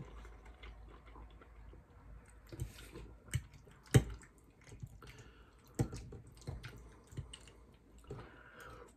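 Close-miked wet eating sounds: scattered moist mouth clicks and smacks from chewing pasta with meat sauce, with one sharper click about four seconds in.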